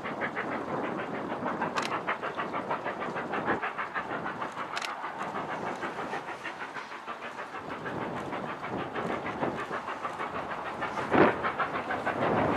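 LMS Black Five 4-6-0 steam locomotive working hard up a steep gradient with a short train, its exhaust beating in a rapid, even rhythm, heard from a distance. One brief louder burst about eleven seconds in.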